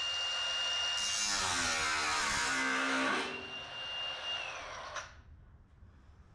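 Electric angle grinder running at speed with a steady high whine. It slows once and spins back up, then winds down with a falling whine and stops about five seconds in, followed by a few faint clicks.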